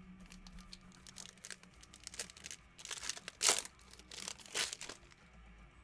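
Foil wrapper of a trading-card pack being torn open and crinkled by hand, in a few short bursts of rustling, the loudest about three and a half seconds in.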